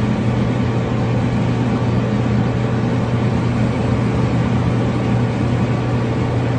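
Steady motor vehicle noise: a low engine hum over an even rush, unchanging throughout.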